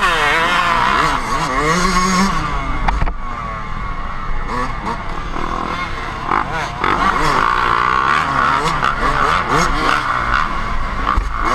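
Dirt bike engine revving up and down over and over as it is ridden hard along a rough trail, with other dirt bikes close by.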